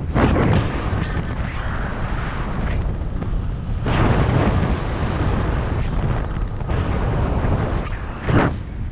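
Wind rushing and buffeting over the camera microphone of a paraglider in flight, swelling louder in gusts a few times.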